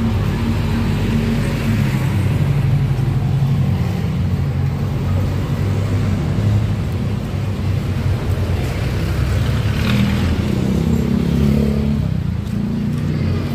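Steady low rumble of street traffic and motor engines on a busy road, with a brief higher-pitched sound about ten seconds in.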